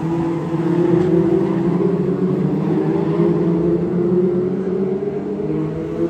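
Several Superstox oval racing cars running round the track together, their engines overlapping, with pitches rising and falling as the cars pass through the bend.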